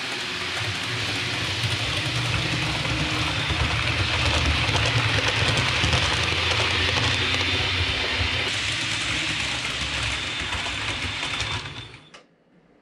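OO gauge model Advanced Passenger Train running on the layout track: a steady motor hum with rumble and hiss from the wheels, loudest about halfway through as it passes close, then cut off sharply near the end.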